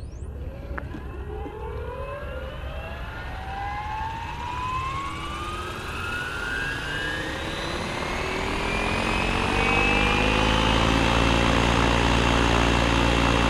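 T-Rex 700 RC helicopter in a Bell Jet Ranger scale body spooling up on the ground: a whine that climbs in pitch and loudness for about ten seconds, then holds steady at flying speed.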